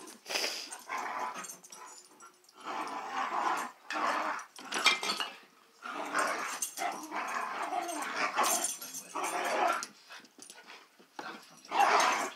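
Two dogs play-fighting, growling in repeated bouts with short gaps between them, the loudest bout near the end.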